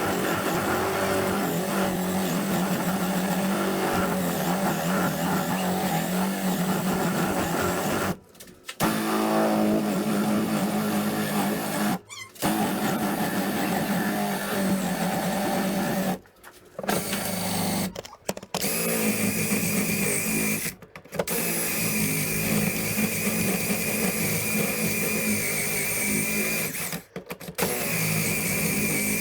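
Electric drill running in long bursts, stopping briefly about six times, while drilling the broken fiberglass handle out of a hatchet head's eye. From about two-thirds of the way through, its pitch rises to a higher whine as the bit works through the material.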